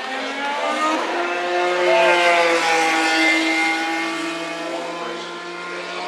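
2018 Chevrolet IndyCar with a twin-turbo V6, running at speed through a turn. It grows louder to a peak about two seconds in, then fades as it moves away.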